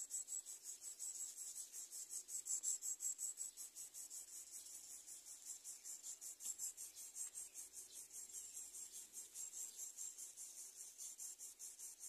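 Insect trilling high-pitched and steady in fast, even pulses, several a second.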